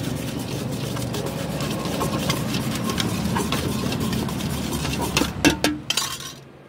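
Metal spoon stirring and scraping a wet masala mix in a stainless-steel bowl, with frequent light clinks against the steel and a few louder clanks about five and a half seconds in. A steady low traffic hum runs underneath.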